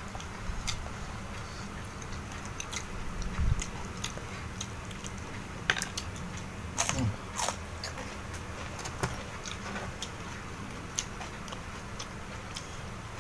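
A person eating close to the microphone: bites and chewing with scattered crisp crunches, a few louder ones near the middle.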